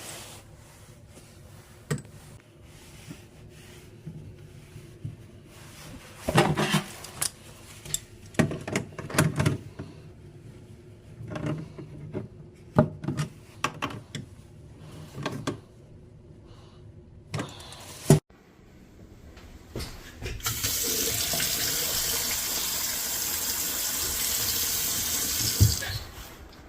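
Scattered knocks and clatter, a sharp click, then water running steadily from a wall-mount faucet for about five seconds before it stops with a knock.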